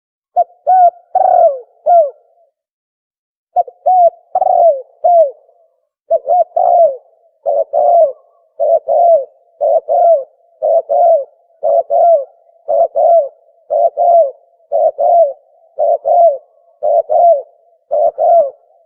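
Recorded cooing of the tukmo dove, played as a hunting call: short low phrases of two or three notes, a brief pause about two seconds in, then repeated evenly about once a second.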